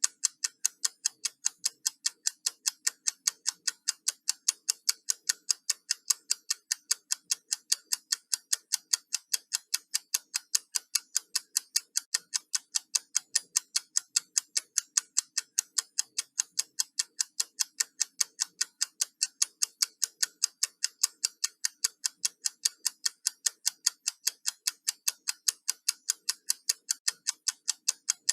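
Countdown timer ticking: sharp, high, clock-like ticks repeating fast and evenly, several a second, at a steady level.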